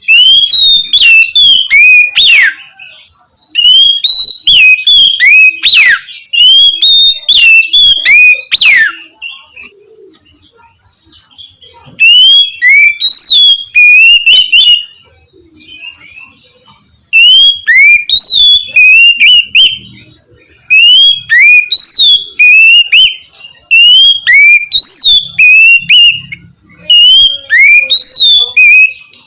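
Oriental magpie-robin (kacer) singing loud whistled song: quick runs of rising and falling notes in phrases of a few seconds, with short pauses between phrases.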